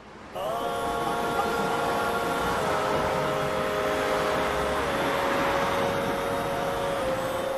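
A steady droning sound that starts just after the beginning: a rushing noise with a held chord of tones on top, whose pitch drops slightly in small steps a few times.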